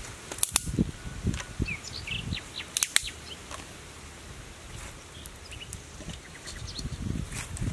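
Small birds chirping against a low outdoor rumble. A few sharp clicks stand out, the loudest about half a second in and about three seconds in, with soft low thuds and rustling in the first two seconds.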